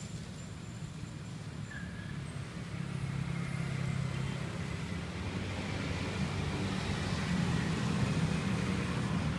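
Street traffic: motor scooters and cars passing on the road, growing louder over the second half as vehicles come closer.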